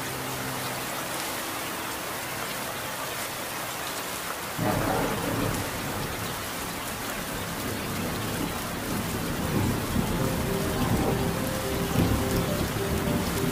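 Steady rainstorm, rain falling hard, with a roll of thunder that breaks in suddenly about four and a half seconds in and keeps rumbling in waves.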